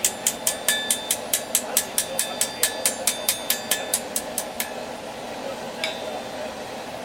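Hammer blows on steel over an anvil in a fast, even run of about five ringing strikes a second, stopping after about four and a half seconds, followed by a single strike about a second later. A steady hum runs underneath.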